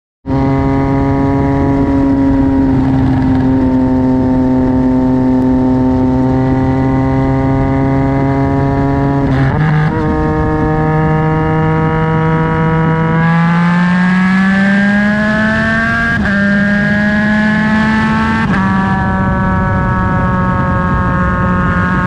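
Yamaha MT-09 crossplane three-cylinder engine through a Black Widow aftermarket exhaust while riding. It holds steady revs at first, with a brief break in the note about nine seconds in. From about thirteen seconds the revs climb, and near sixteen and eighteen seconds the pitch drops sharply twice: quick clutchless upshifts on the quickshifter.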